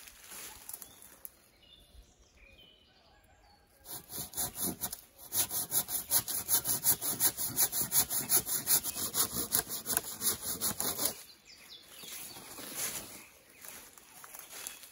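Hand pruning saw cutting through a fallen tree limb: quick, even back-and-forth strokes that start about four seconds in and stop sharply some seven seconds later, with quiet rustling before and after.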